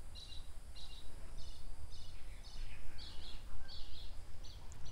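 Bird chirping in short high notes, repeated about two to three times a second, over a steady low rumble of outdoor background noise.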